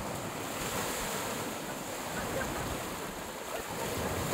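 Small waves breaking and washing up on a sandy shore, a steady rush of surf, with wind on the microphone.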